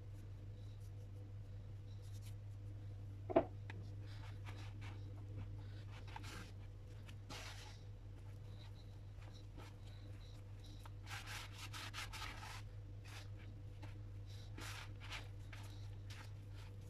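Flour and water being worked into a shaggy bread dough in a plastic bowl, first with a silicone spatula and then by hand: soft, irregular rubbing and scraping. One sharp knock about three seconds in, over a steady low hum.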